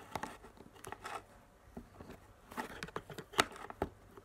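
A plastic toy doll being handled and pushed onto its plastic display stand: a run of small clicks, taps and rustles, with one sharper knock a little after three seconds in.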